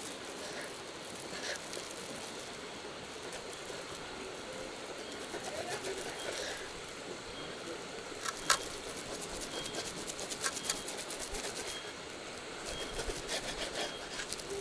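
A knife slicing a raw steak on a wooden cutting board, with the plastic wrap under the meat crinkling and scattered sharp clicks and taps. The loudest click comes a little past halfway.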